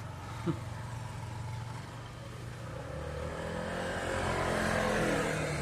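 A motor vehicle passing on the street: a steady engine hum that builds to its loudest about four to five seconds in and then begins to fade. There is a short, sharp high sound about half a second in.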